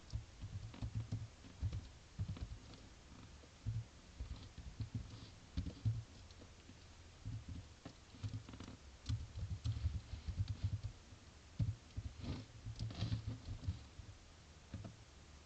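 Computer keyboard typing in irregular runs of keystrokes, mostly dull and soft, with a few sharper clicks late on.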